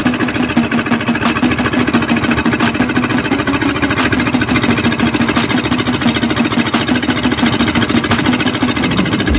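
Heavy-equipment engine idling steadily, with a faint sharp tick repeating about every second and a third.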